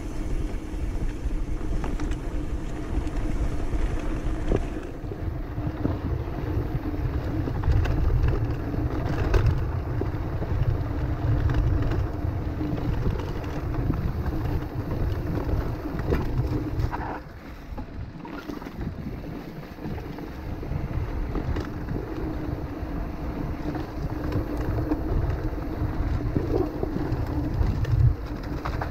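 Off-road motorcycle engine running steadily, with wind buffeting the microphone. The low rumble drops for a few seconds just past the middle, then picks up again.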